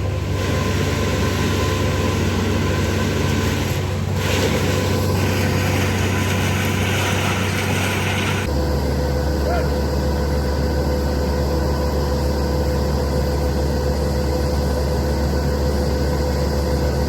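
Heavy equipment engine running steadily. The engine note shifts abruptly about four seconds in and again about eight and a half seconds in.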